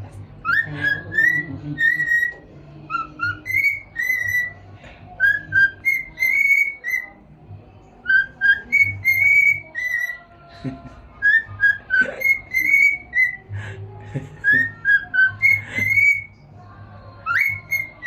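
Cockatiel whistling a tune: short, clear whistled notes in quick phrases, over and over with brief pauses.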